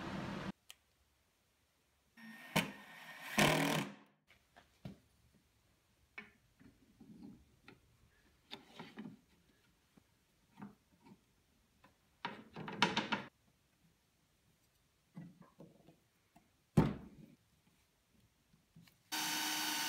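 Scattered knocks and clatters of small wooden parts being handled and fitted together on a workbench, with quiet stretches between them. About a second before the end a cordless drill starts running steadily, drilling a pilot hole in wood.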